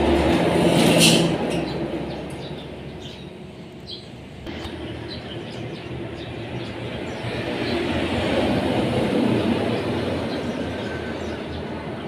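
Eurasian tree sparrows giving short chirps over a loud, low rumbling background noise. The rumble swells about a second in, dips around four seconds in, and swells again about eight to nine seconds in.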